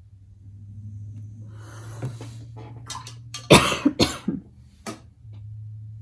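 A woman coughing, two sharp coughs about halfway through followed by a couple of smaller ones, over a low steady hum.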